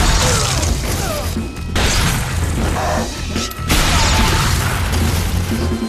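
Action-film soundtrack: dramatic score music under three loud crashing noise bursts that hit about two seconds apart.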